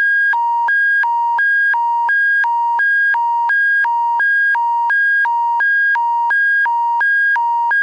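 Emergency-alert attention signal: a buzzy electronic two-tone hi-lo tone that switches evenly between a lower and a higher pitch about every third of a second. It is the attention tone that comes before an Alberta Emergency Public Warning System bulletin.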